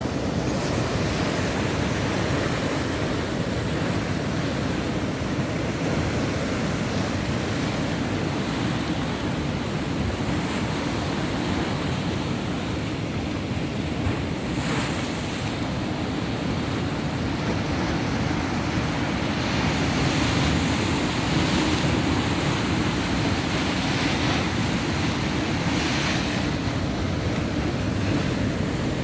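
Heavy surf from a rough, storm-driven sea: waves breaking and washing in a continuous deep rush, swelling louder now and then. Wind buffets the microphone.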